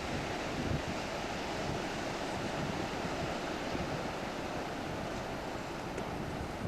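Wind buffeting the microphone: a steady noise with an uneven, fluttering low rumble.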